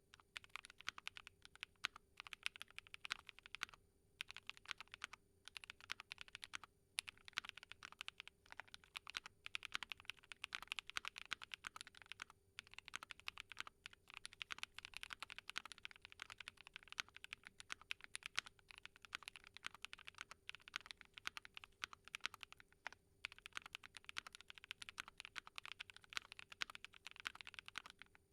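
Continuous typing on a Keychron Q12 mechanical keyboard with SOTC linear switches, a POM plate, PE and Poron foams and doubleshot ABS Cherry-profile keycaps: a dense run of keystroke clicks broken by a few short pauses.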